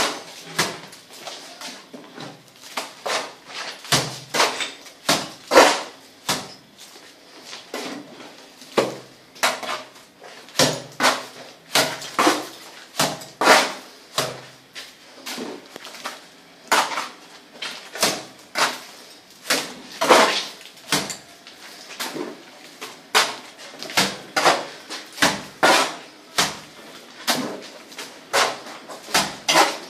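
Wet cement render thrown onto a wall with a mason's trowel: a short wet slap repeating about once or twice a second, some strokes louder than others.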